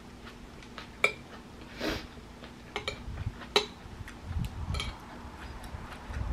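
Metal spoon clinking and scraping against a ceramic bowl while stirring a rice and poke bowl: a few sharp clinks and a short scrape, with soft chewing in between.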